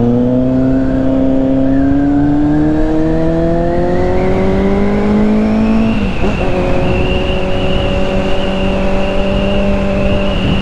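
Motorcycle engine pulling steadily up through the revs under acceleration, dropping sharply at about six seconds as the rider shifts up a gear, then holding steady revs. A high whine rises with the engine, over steady wind noise.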